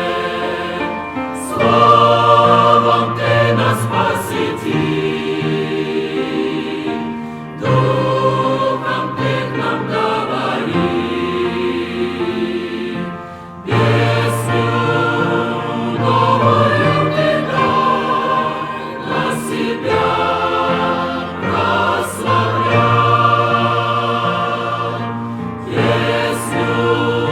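Choir singing a Christian hymn in long sustained phrases, with brief breaks between phrases about seven and fourteen seconds in.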